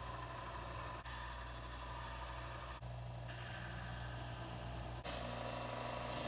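A motor running steadily, with a low even hum, broken by abrupt cuts about one, three and five seconds in.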